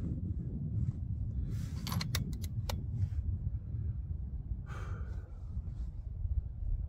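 Wind buffeting the microphone, with a quick run of small sharp clicks about two seconds in as the rifle is handled, and a brief rustle near five seconds. No shot is fired.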